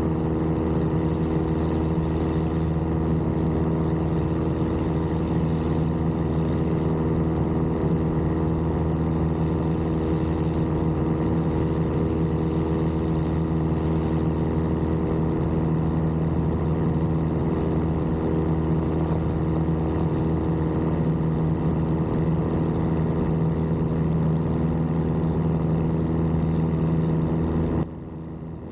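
Piper J3 Cub's piston engine and propeller running steadily in flight, heard from the cockpit. The sound drops in level briefly about a second before the end.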